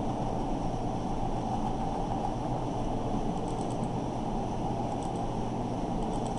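Steady low background hum and hiss of the room and microphone, with a few faint mouse clicks about three and a half seconds in and again near five seconds as PDF pages are flipped.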